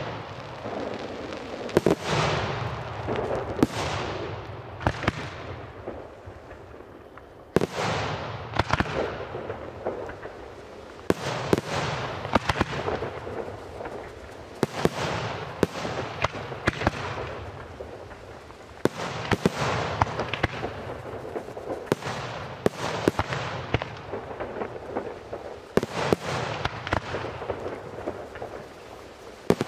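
Aerial firework shells bursting in quick succession throughout a display: sharp bangs, several every few seconds, each trailing off in a long echo, with rapid crackling pops from the bursting stars in between.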